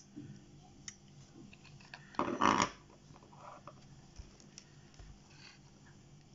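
Faint handling of a small camera's opened insides: a few soft clicks and a brief rustle a little over two seconds in, as ribbon cables are unplugged from the GoPro Hero 7 Black's circuit board.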